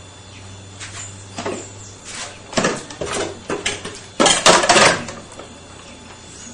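Kitchenware clattering as dishes and utensils are handled at a kitchen counter: a string of separate knocks and clinks, loudest about four seconds in.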